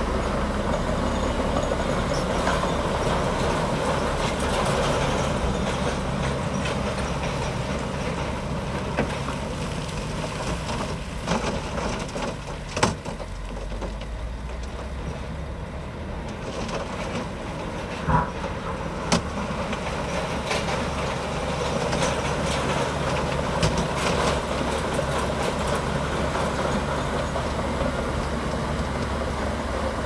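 Komatsu D65P bulldozer's diesel engine running steadily. The engine eases off in the middle and picks up again toward the end, with a few sharp knocks about halfway through.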